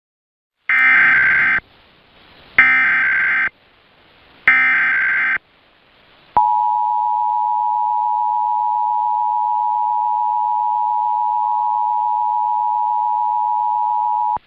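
Emergency Alert System SAME header: three short bursts of screeching data tones, about two seconds apart. These are followed, about six seconds in, by the EAS two-tone attention signal, held steady for about eight seconds. Together they start a required monthly test alert.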